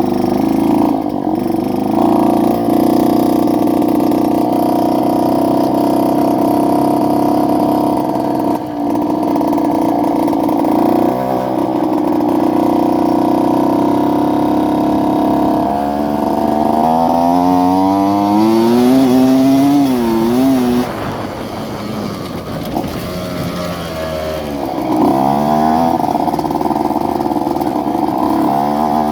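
Yamaha F1ZR single-cylinder two-stroke engine in a modified underbone motorcycle, running at a steady pitch, then revving up and down a little past halfway, easing off and coming back to a steady pitch near the end.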